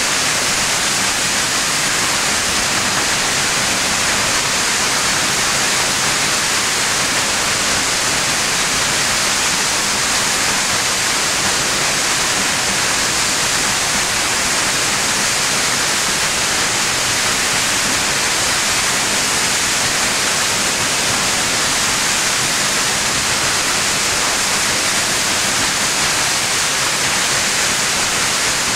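South Falls, a 177-foot waterfall, pouring with a steady, unbroken rush of water.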